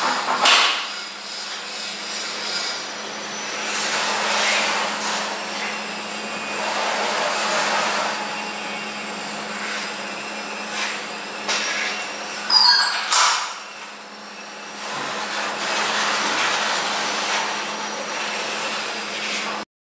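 Aluminium-framed glass sliding doors being slid open along their tracks, making long runs of rolling, rubbing noise, with a couple of sharp clacks about 13 seconds in as a panel knocks against the frame or latch. A faint steady hum sits underneath.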